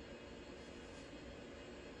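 Faint steady background hum and hiss of room tone, with no distinct sounds standing out.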